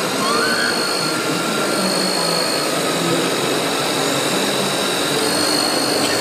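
Scale radio-controlled Cat M322C wheeled excavator at work, its hydraulic pump and motors giving a steady high whine that drops out and comes back a few times, over a steady hiss.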